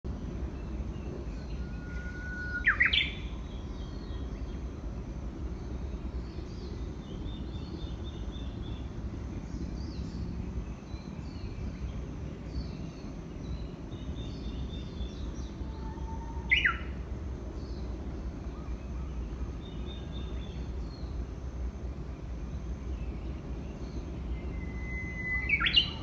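Japanese bush warbler singing its 'hō-hokekyo' song three times: each song is a held whistle followed by a quick rising and falling flourish, about two seconds in, midway and near the end.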